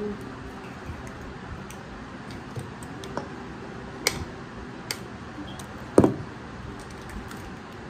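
Eggs being tapped and cracked against a stainless steel pot: a few sharp clicks, the loudest about six seconds in with a short metallic ring.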